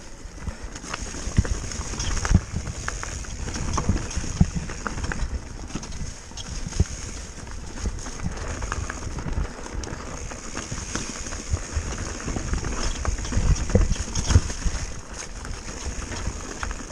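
Mountain bike descending a rocky dirt trail: tyres crunching over loose stones, with the chain, frame and suspension rattling and knocking at each rock hit, the sharpest knocks about two seconds in and again near the end.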